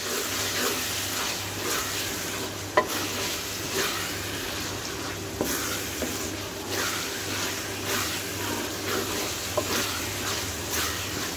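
Minced mutton sizzling in a metal pan while a wooden spatula stirs and scrapes through it, in repeated strokes about once a second over a steady frying hiss.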